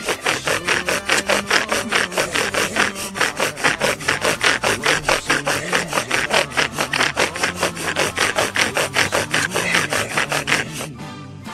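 Bow drill worked hard and fast: the wooden spindle spinning back and forth against the fireboard with even rasping strokes, about four or five a second, to build up a coal. The strokes stop just before the end.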